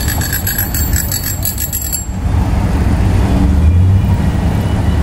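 Bicycle bell rung rapidly, about five rings a second, stopping about two seconds in, over a low rumbling noise.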